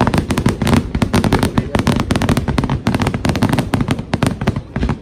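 Fireworks going off in a rapid barrage: a dense run of sharp bangs and crackles, many per second, over a low rumble.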